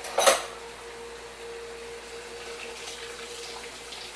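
Kitchen tap water running into a sink, with a short, loud clatter near the start and a steady tone that stops about three and a half seconds in.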